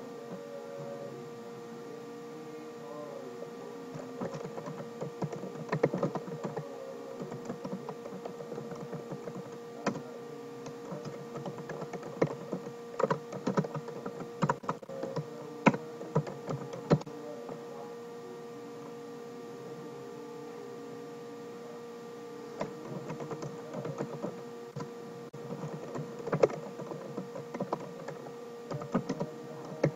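Typing on a computer keyboard: bursts of quick key clicks with a pause of a few seconds past the middle, over a steady hum.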